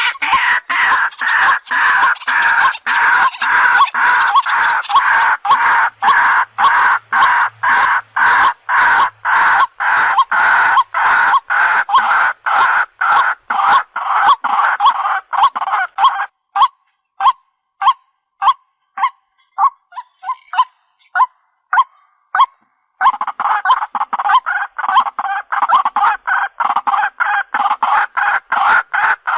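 White-breasted waterhen call, played through a speaker as a lure for wild waterhens: a long run of loud, harsh notes repeated about two or three times a second. From about halfway through it thins to scattered single short notes for several seconds, then the dense calling resumes.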